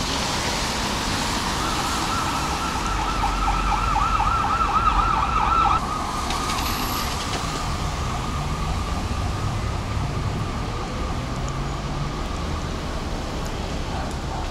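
Emergency vehicle siren warbling rapidly up and down over street traffic noise, cutting off abruptly about six seconds in.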